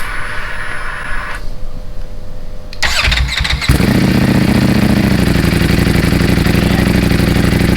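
A Ducati V4 motorcycle engine started: after a faint electrical whine, the starter cranks briefly about three seconds in, the engine catches with a loud burst and settles into a steady, loud idle.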